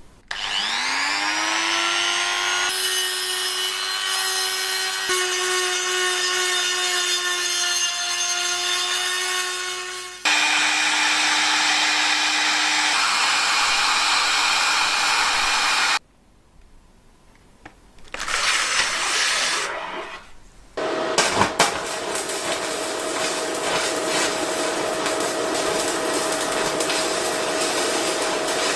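The electric motor of an old potato peeler spins up with a rising whine, then runs steadily. It stops a little past halfway, starts again, and runs on with a coarse rubbing, grinding sound.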